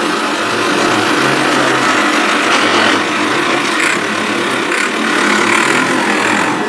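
Plastic toy tractor being pushed along a sandy mat, its wheels and gearing giving a steady, rough grinding whirr.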